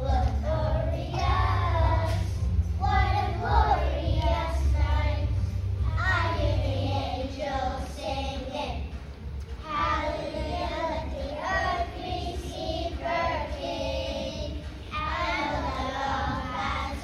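Children's choir singing a Christmas song together over instrumental accompaniment, in sung phrases; the low bass of the accompaniment drops away about seven seconds in.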